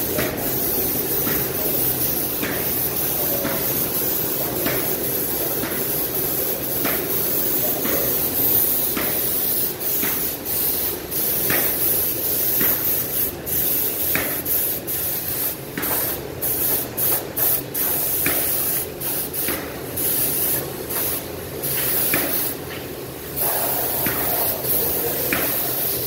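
Paint spray gun spraying paint onto a steel bucket: a steady hiss of atomised paint and air, broken by many short pauses in the second half, the longest a little before the end.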